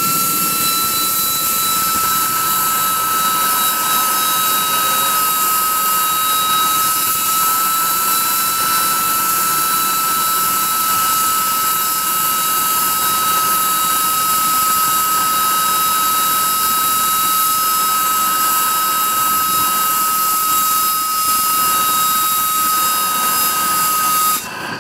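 Homemade turbocharger jet engine running on propane: a loud steady rush of air with a high, even whine from the spinning turbo, which cuts off suddenly near the end.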